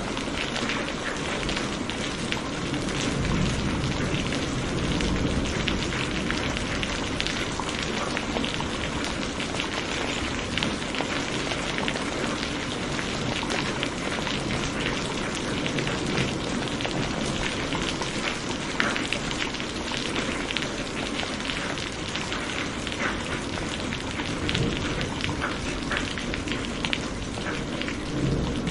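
Steady heavy rain falling on a surface, a dense hiss of drops with many small patters and a low rumble underneath.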